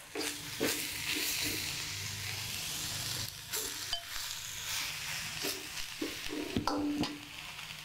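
Stir-fry sizzling in a stainless steel wok as boiled egg noodles are tipped in from a bowl, with a metal spatula scraping and knocking against the wok a few times.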